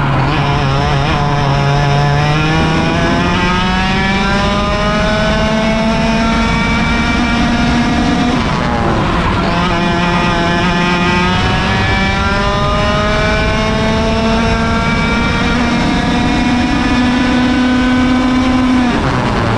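100cc two-stroke kart engine at racing speed, heard onboard: its pitch climbs steadily through the revs, falls sharply about eight and a half seconds in, climbs again for about ten seconds and falls once more near the end.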